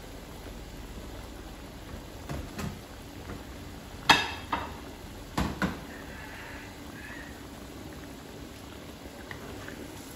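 Coconut-milk curry bubbling in a wok as it comes to the boil, a steady low simmer. In the middle come a few sharp knocks and clinks, the loudest a ringing metallic clink about four seconds in.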